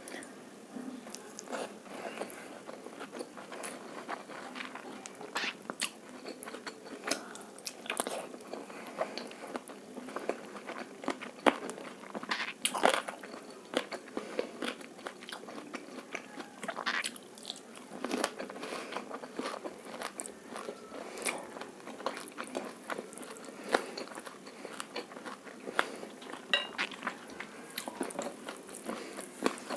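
Close-miked eating: chewing and biting with many irregular crunchy clicks and wet crackles, a few louder bites around the middle. It is egg fried rice and fried chilli chicken being eaten.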